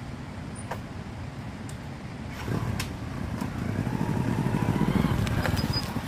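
Motorcycle engine running at low speed as the bike rides up, with an even low pulsing that grows louder from about halfway through as it comes close.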